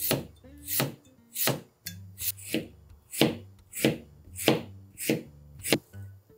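Chef's knife slicing through a cucumber on a plastic cutting board, with the cucumber resting between two wooden chopsticks for a spiral cut. About ten even, sharp cuts, roughly one every two-thirds of a second.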